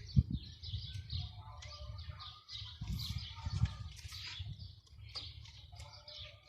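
Birds chirping in many short, quick calls, mixed with irregular low knocks and rustling.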